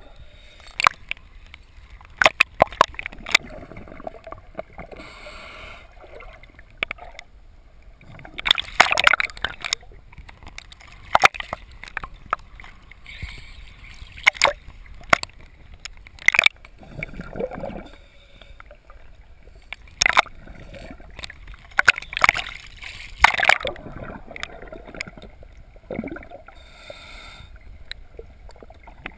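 Sea water sloshing and splashing at the surface around a camera that dips in and out of the waves, with scattered sharp clicks and pops and several louder splashing surges.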